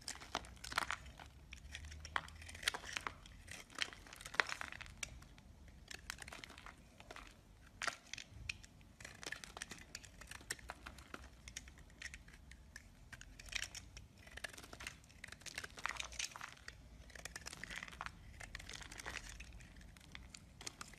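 A snap-off utility knife is cutting into a bar of soap. It makes a rapid, irregular run of crisp scrapes and cracks as shavings break away.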